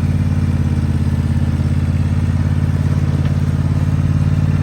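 John Deere riding lawn mower's engine running steadily at a constant speed.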